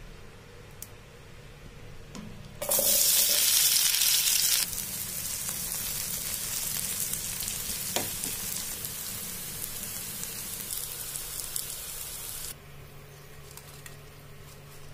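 Sliced onions sizzling in hot oil in a frying pan as they are stirred. A loud burst of sizzling lasts about two seconds, then a steadier sizzle runs on, and it drops away near the end.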